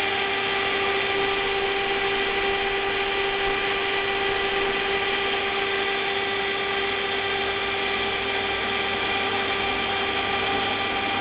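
An ABB ACS550 AC drive on the test bench running steadily, giving a constant whine over a hum with no change in speed.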